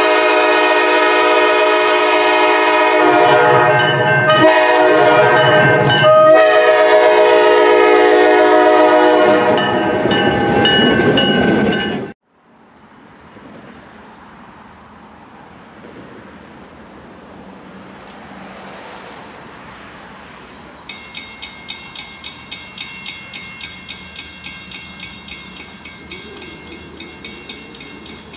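Amtrak Downeaster train sounding its horn for a grade crossing in several loud blasts, the last running into the rumble of the train passing close before the sound cuts off. After a stretch of quiet, a grade-crossing bell starts ringing about two-thirds of the way in, at roughly two strikes a second.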